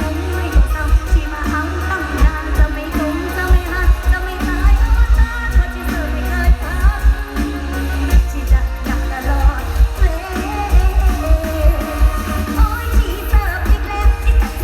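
Live mor lam band music through a large PA system: a singer carries the melody over a heavy, steady kick-drum beat and backing band.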